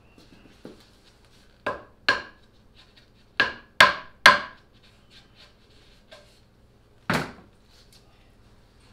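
Hammer driving small nails into a plywood panel: sharp strikes, two and then three in quick succession a couple of seconds in, and one heavier knock near the end.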